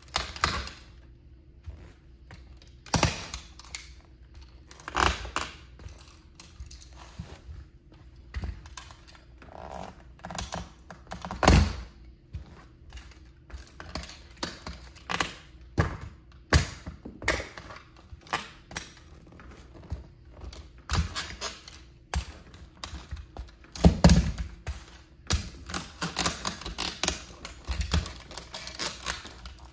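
Scale-model Plymouth Prowler toy car being crushed under a high-heeled sandal: a series of sharp cracks, snaps and thunks as its parts break. The loudest cracks come a little before halfway and again about four-fifths through, with a denser run of crackling near the end.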